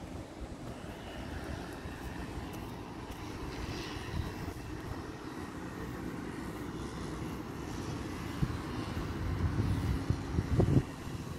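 Street traffic: a steady low rumble of passing vehicles, with a louder vehicle going by near the end.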